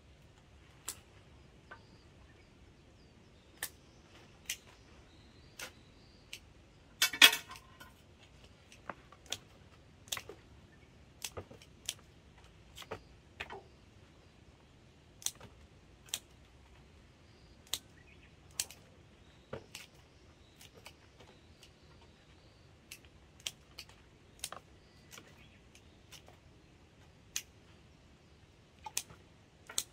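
Pruning shears snipping hydrangea stems to make cuttings: sharp clicks at irregular intervals, about one or two a second, with a louder cluster of snips about seven seconds in.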